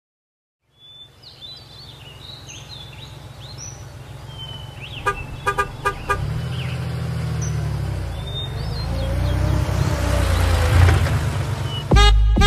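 A car driving slowly up a narrow street, its engine rumble growing louder as it comes close, with a few short toots of its horn about five seconds in. Birds chirp over it, and music with a beat starts near the end.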